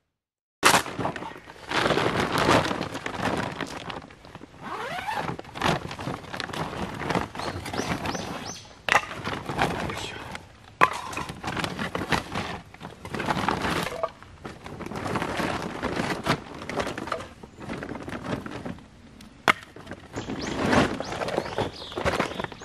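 Knife shaving a stick of firewood into a feather stick: repeated scraping strokes of a second or two each, with a few sharp cracks of wood along the way.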